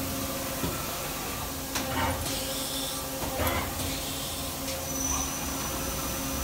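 Daewoo Puma 2500LM CNC turn-mill center running a test program: a steady machine hum with a few short clanks and rattles around the middle, and a thin high whine setting in near the end.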